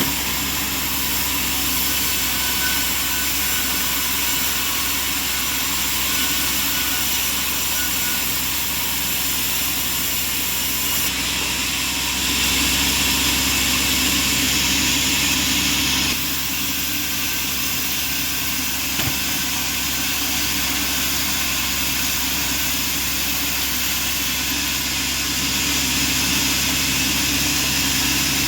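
Bandsaw sawmill machinery running steadily: a constant engine hum under a broad hiss. The hiss grows brighter for a few seconds near the middle, and there is one short click about two-thirds of the way through.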